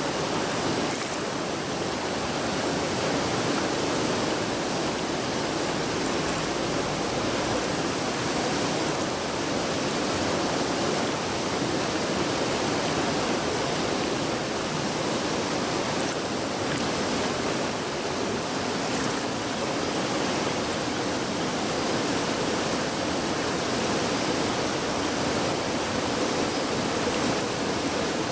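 Steady rush of a river in flood, swollen by heavy rain, its fast-moving water making a continuous roar-free even wash of noise.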